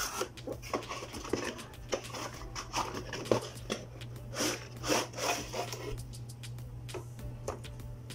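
Cardboard router box and its molded pulp tray being handled: scattered rubs, taps and rustles of paperboard, over a steady low hum.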